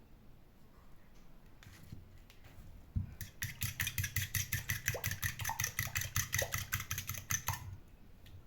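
Hand whisk or spoon beating a mixture in a bowl: rapid, even strokes about eight a second, starting about three seconds in and stopping sharply after about four and a half seconds.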